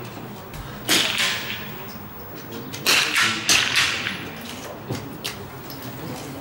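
Smallbore .22 rimfire target rifles firing on the range: sharp single cracks with a ringing echo, three loud ones about a second, three seconds and three and a half seconds in, and fainter shots near the end.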